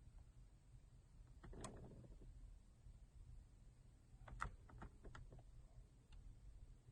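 Near silence with a few faint clicks, one about a second and a half in and a short cluster around four and a half seconds in: the push-to-start button of a 2016 Chevy Malibu being pressed twice to finish smart key programming.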